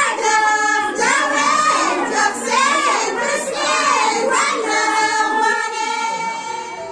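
A group of high women's voices singing together, a wedding song. It ends on a long held note that fades out near the end.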